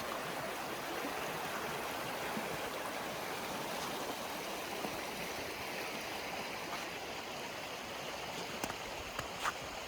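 A river flowing close by: a steady rush of water, with a few faint clicks near the end.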